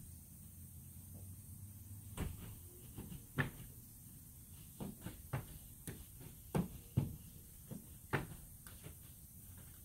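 About a dozen irregular knocks and clunks, short and scattered, some sharper and some duller, like hard objects being handled and set down.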